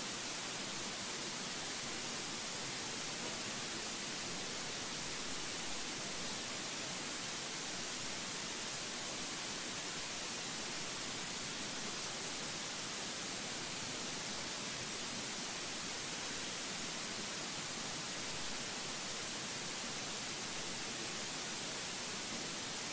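Steady, even hiss, strongest in the high end, with no other sound standing out.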